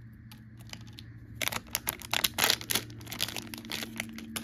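Plastic blind bag being torn open and crinkled by hand: a flurry of sharp crackles starting about a second and a half in and lasting about two seconds, over a faint steady hum.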